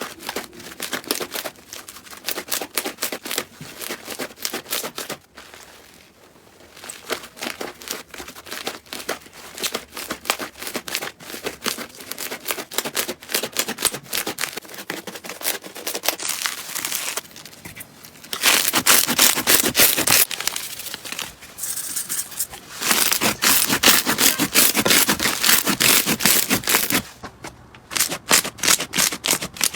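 Slime being squeezed and pressed by hand, making a dense run of crackles and small pops. The crackling grows louder and thicker in two stretches in the second half.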